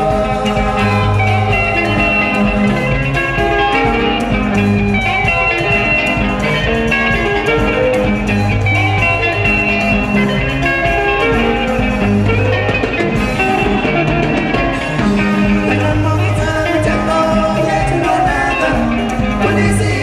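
Zimbabwean dendera band playing live: interlocking electric guitar lines over a repeating bass guitar figure and a drum kit.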